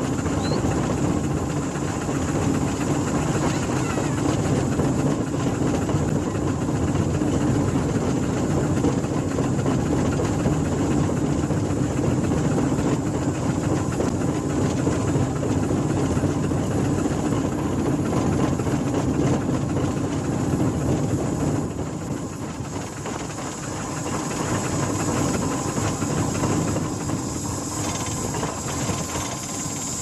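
Steam ploughing engine working its winding drum, hauling a balance plough across the field on a wire rope: a steady hissing run of the engine, dipping somewhat about two-thirds through.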